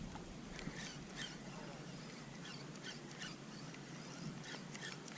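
Quiet open-air ambience with faint, scattered short chirps of distant birds.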